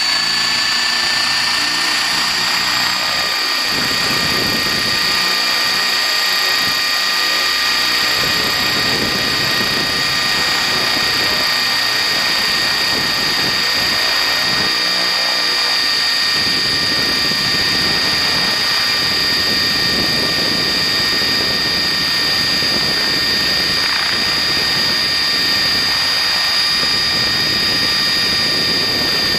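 High electric-motor whine of a small radio-controlled model aircraft, heard close up: several steady pitches that rise a little in the first couple of seconds and then hold level. Under it runs an uneven rush of air.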